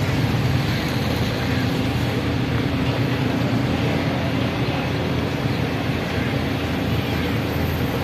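Tractor's diesel engine running steadily while its hydraulics tip up the loaded sand trolley.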